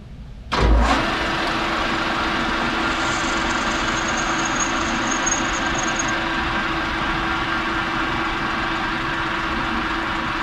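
Metal lathe switched on about half a second in, starting with a thump and then running steadily with the chuck spinning an aluminium workpiece for a light finishing pass. A faint high whine sounds for a few seconds in the middle.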